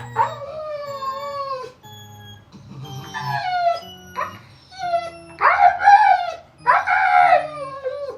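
Siberian husky howling and whining in a string of drawn-out calls that bend up and down in pitch; the loudest two come about five and seven seconds in.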